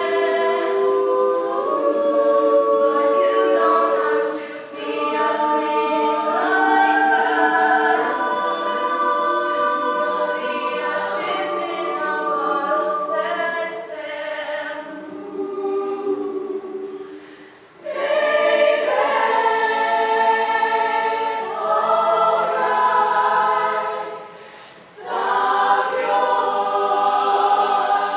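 Women's a cappella group singing in close harmony, unaccompanied voices holding and shifting chords. The singing drops back briefly a few times, with a short pause about two-thirds of the way through before the full group comes back in.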